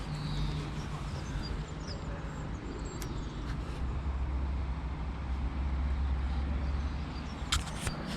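A motor vehicle's engine running with a steady low hum over a noisy background, dropping to a lower hum about halfway through. A few sharp clicks come near the end.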